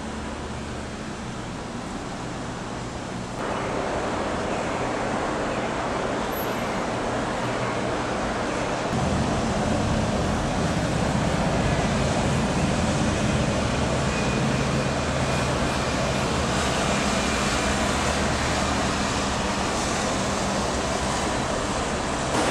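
Steady outdoor background rumble with a low hum, with no voices. It gets abruptly louder about three seconds in and again about nine seconds in.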